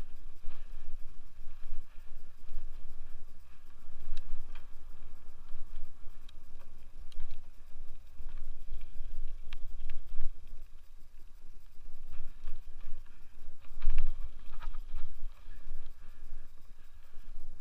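Wind buffeting the microphone in an uneven low rumble while a Scott Aspect 770 mountain bike rolls over pavement, with scattered clicks and rattles from the bike and a louder knock about fourteen seconds in.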